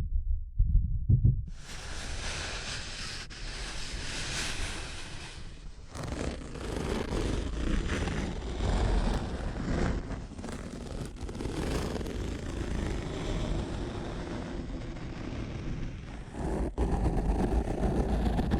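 A few soft low thumps, then from about a second and a half in a dense, scratchy rushing noise close on the microphone that swells and eases: an ASMR trigger sound.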